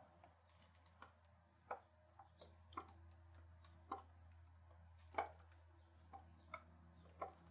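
Faint, irregular metallic clicks and taps, roughly one a second, from hand tools at work on the oil pressure sensor at the back of the engine, over a faint low hum.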